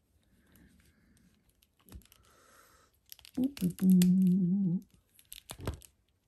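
A person hums a short, wavering note for about a second and a half midway through. Around it come light rustles and sharp clicks from a plastic action figure being handled and its leg joints bent, with a pair of louder clicks near the end.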